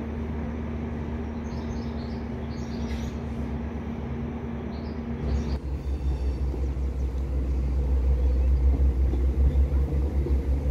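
Diesel train engines rumbling with a steady hum and birds chirping. About five seconds in, this gives way to the deep, louder low rumble of a standing Class 201 diesel-electric locomotive close by, which keeps growing louder.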